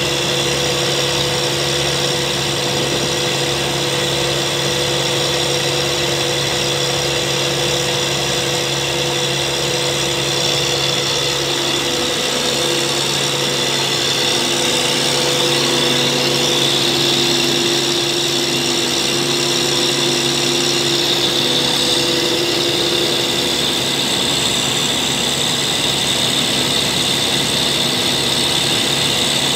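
Terra-Gator self-propelled slurry applicator's diesel engine running steadily up close, with a high whine on top that climbs in pitch around the middle and again later.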